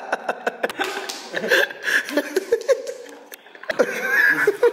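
People laughing and chuckling, mixed with bits of talk. It dies down briefly about three seconds in, then picks up again.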